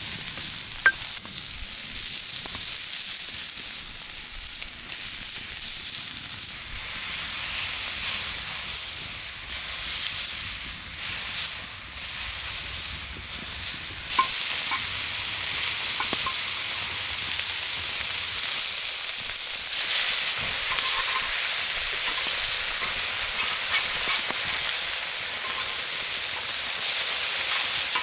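Burger patties sizzling steadily on a hot metal griddle hung over a wood fire, with a few sharp clicks.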